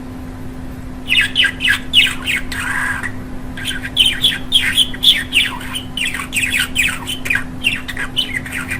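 Budgerigar chattering: a quick, continuous run of short falling chirps and squawks, starting about a second in, over a steady low hum.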